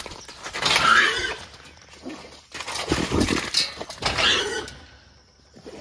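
Trapped 216 lb feral boar hog squealing and grunting in three loud bursts inside a steel corral trap.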